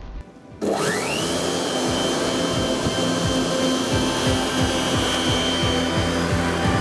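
Bosch AdvancedRotak 750 electric lawn mower's 1700 W motor starting about half a second in, its whine sweeping up quickly to a high pitch, then running steadily as the mower is pushed through the grass.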